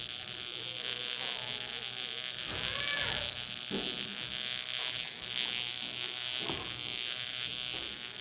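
Steady buzzing hiss of background noise, with faint children's voices rising and falling now and then.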